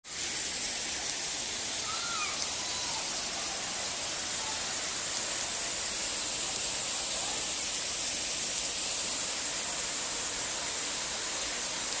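Steady rush of a waterfall pouring into a pool, an even hiss-like noise with no break.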